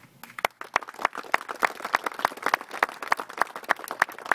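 Applause from a small group, with one pair of hands close by clapping evenly about three times a second; it starts suddenly.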